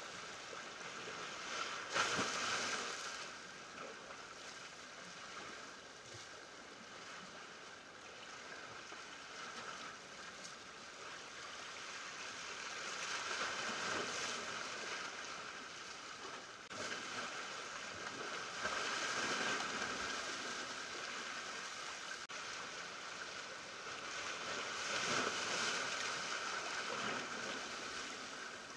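Small ocean waves washing over shoreline rocks, the surge rising and falling every few seconds, with a sharper crash about two seconds in.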